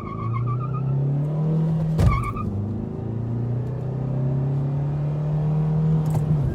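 A car engine running steadily, its pitch climbing slowly as it pulls. A sharp knock and a brief high chirp come about two seconds in. The engine note drops away near the end.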